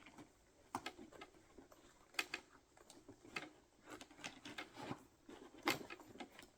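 Hand tools being handled and fitted into the pockets of a Veto Pro Pac tool bag: a handful of sharp light clicks and knocks, spread out, over faint rustling.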